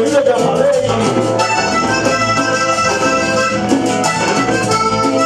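Live cumbia band playing, an accordion leading the melody over bass guitar, drums and percussion in a steady dance rhythm.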